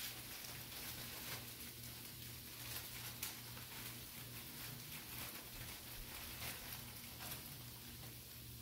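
Artichokes and garlic sizzling in a frying pan on a gas stove, a steady hiss with scattered small crackles as handfuls of fresh spinach go in. A steady low hum runs underneath.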